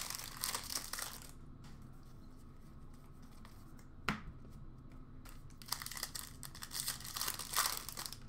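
Upper Deck hockey card packs being torn open, the foil wrappers crinkling in rustling bursts at the start and again over the last few seconds. A single sharp tap comes about four seconds in.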